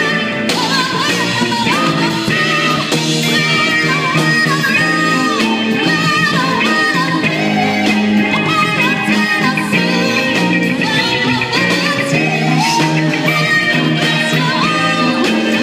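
Live band playing a song, with a singer over guitar and backing instruments.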